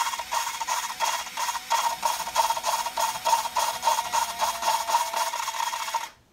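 Cordless drill spinning an exhaust valve against its seat on a Dodge 2.2L turbo cylinder head, lapping it in with valve grinding compound: a steady motor whine with a gritty scraping that pulses several times a second, stopping suddenly near the end.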